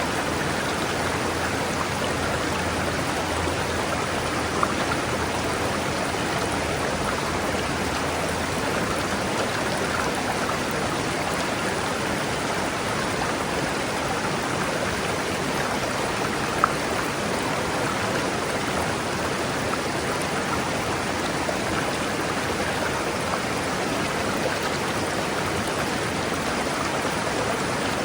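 River water rushing and babbling steadily over rocks, with two brief faint clicks, at about five seconds and past the middle.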